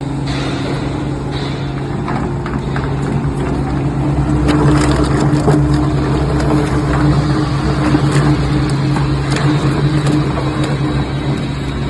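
Electric motor of a large meat and bone grinder running with a steady hum, with scattered sharp cracks and knocks over it; it grows louder about four seconds in.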